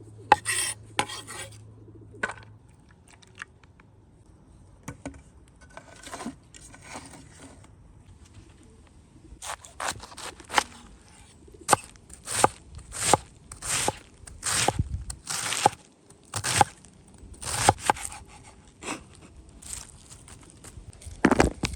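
Knife cutting through crisp food on a board: a few scattered crunching cuts, then a run of separate strokes at about one a second through the second half.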